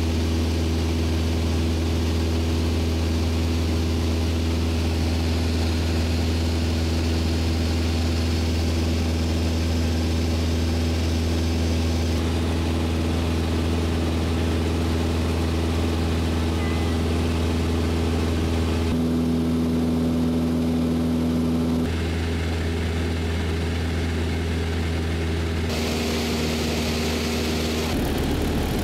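Mooney M20J 201's four-cylinder Lycoming engine and propeller running steadily in flight: a constant low drone that changes tone suddenly a few times.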